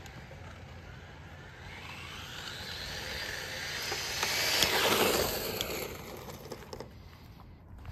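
Tamiya MF-01X RC car with a 15-turn HPI electric motor running flat out. Its motor whine and tyre noise on asphalt build as it speeds toward the microphone, peak as it passes about five seconds in, then fade away.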